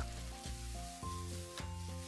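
A wok stir-fry sizzling as the squid in black bean and chili sauce is tossed over high heat, under background music with a steady melody.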